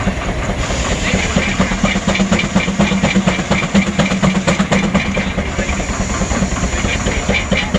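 Advance-Rumely steam traction engine running, its exhaust beating in a quick, even rhythm, with the belt-driven sawmill machinery running underneath.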